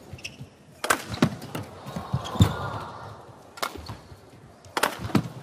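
Badminton rally: about half a dozen sharp cracks of rackets striking the shuttlecock at uneven intervals, with thuds of players' footwork on the court, over a faint arena crowd hum.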